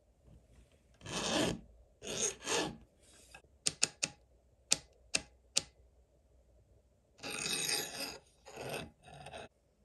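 Round chainsaw file rasping across the cutters of a dull saw chain in short hand strokes, three strokes then a pause with six sharp clicks, then three more strokes. It is the chain's first filing, cutting through the factory grind.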